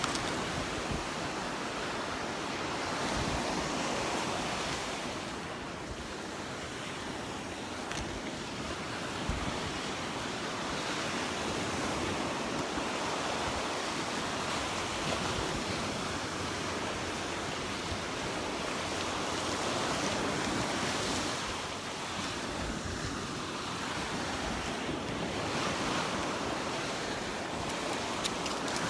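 Gulf surf washing onto the beach in a steady rush that swells and eases every few seconds, with wind buffeting the microphone.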